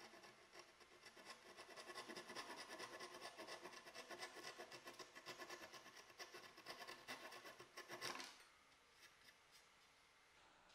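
Flush-cut handsaw held flat against pine slats, sawing off protruding wooden dowel ends with quick, rapid strokes for about eight seconds before it stops, followed by a few light taps.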